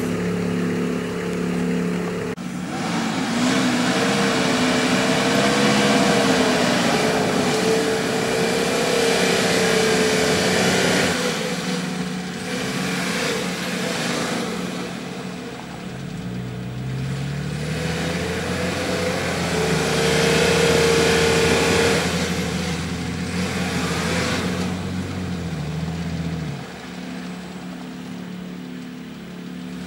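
Nissan Patrol 4x4's engine working hard as the truck crawls through deep mud ruts. It runs steadily for the first couple of seconds, then revs, its pitch rising and falling under load.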